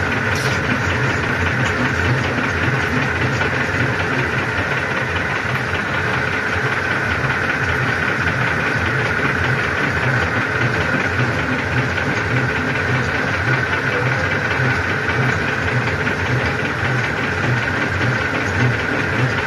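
Metal lathe running steadily with a shock absorber body turning in its chuck as it is machined open: a constant machine drone with a steady high whine over a rhythmic low beat from the drive.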